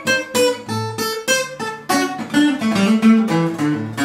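Guitar strummed in a steady rhythm of about three strokes a second, changing chords as the instrumental intro to a song.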